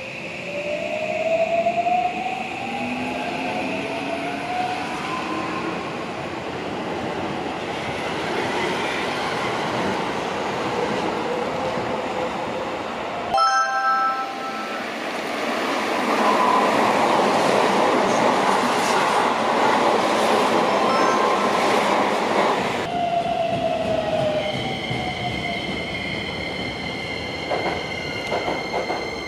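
Electric commuter train pulling out, its motor whine rising in pitch as it gains speed. About halfway through comes an abrupt change to a Keisei AE-series Skyliner passing through at speed with a loud rushing roar. Near the end, a train stands at the platform with a short falling whine and a steady high hum.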